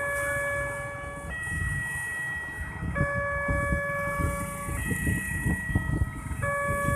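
Railway level-crossing warning siren sounding a two-tone alternating wail, switching between a higher and a lower tone about every one and a half to two seconds, to warn of an approaching train as the barrier comes down. Motorbike engines run underneath as traffic crosses.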